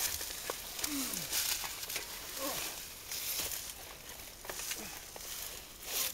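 An animal under the floor of a house gives a few short cries that fall in pitch, between brief bursts of hiss-like noise and small clicks.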